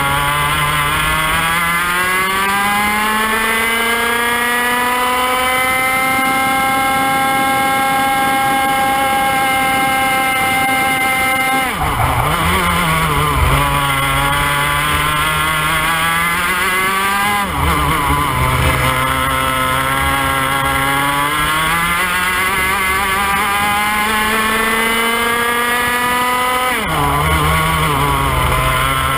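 IAME X30 two-stroke kart engine heard onboard at racing speed, its pitch climbing steadily through a long pull of about twelve seconds. It drops sharply off the throttle about twelve seconds in, again a few seconds later and again near the end, climbing back up each time as the kart accelerates out of the corners.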